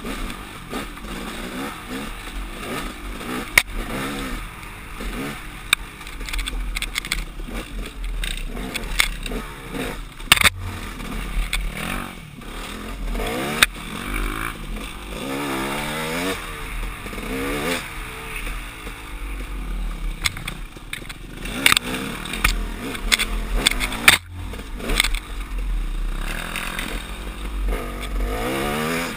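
KTM 300 XC-W two-stroke dirt bike engine revving up and down as the throttle is worked along a twisty trail, with sharp knocks and clatter now and then from the bike hitting roots and ruts.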